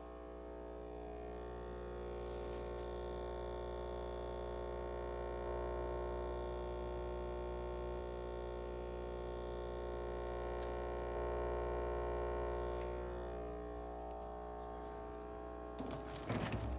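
LG GW-B509SQJZ refrigerator humming: a steady drone of several held tones over a deep hum, the noise the owner complains of. It swells over the first couple of seconds and eases off later, with a brief cluster of clicks and knocks near the end.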